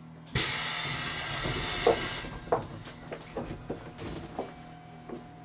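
A sudden hiss of compressed air vented from a JR Central 373 series train's pneumatic system, lasting about two seconds and cutting off abruptly. A string of light knocks follows.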